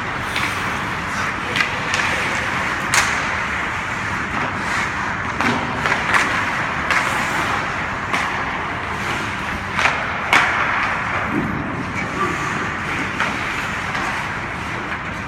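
Hockey game play: a steady wash of rink noise and distant voices, broken by sharp clacks of sticks and puck, the loudest about three seconds in and twice around ten seconds in.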